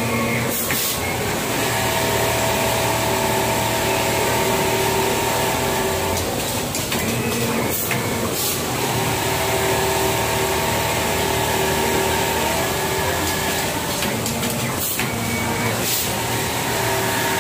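Automatic pattern sewing machine stitching quilting lines: a steady machine whir with the needle's rapid running. The steady tone breaks off briefly twice, near the middle and near the end, with a few sharp clicks.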